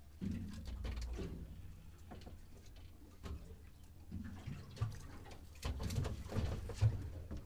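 Small waves lapping and slapping irregularly against the hull of a drifting boat, over a low steady rumble.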